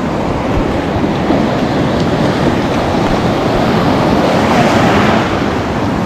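Shallow ocean surf washing in and foaming in a steady rush, swelling briefly as a wave surges in about four to five seconds in.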